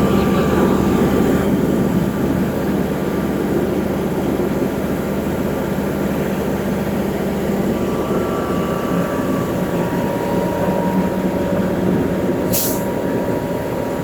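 Heavy diesel engines of a concrete pump truck and mixer truck running steadily, with a short sharp hiss near the end.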